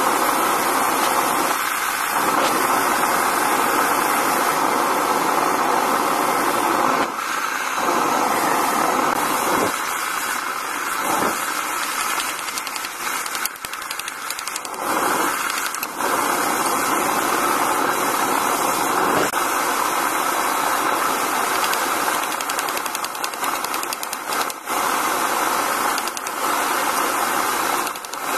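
Steady roaring hiss of a running forge, with a few faint knocks.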